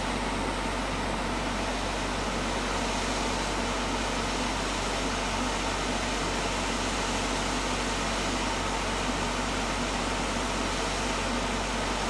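Hot air rework station blowing steadily, an even hiss of air and fan noise, while it heats two small surface-mount resistors to reflow their solder.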